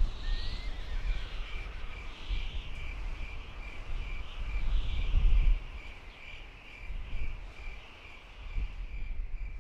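Outdoor marsh ambience: a high chirp repeated evenly about three times a second, over a low wind rumble that swells loudest about five seconds in.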